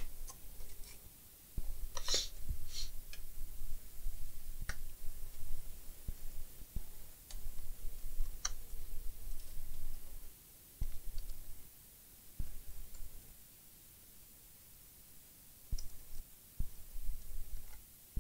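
Scattered clicks and light knocks of a screwdriver working screws out of a laptop's bottom case, with a quieter stretch about two-thirds of the way through.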